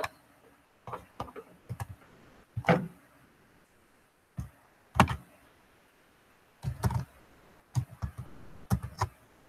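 About a dozen irregular clicks and taps of a computer mouse and keyboard in use, with a few heavier knocks among them.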